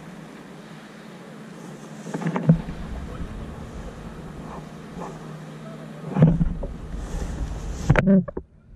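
Wind on the microphone and water around a plastic fishing kayak at sea, with a few thumps of handling on the boat about two and a half, six and eight seconds in.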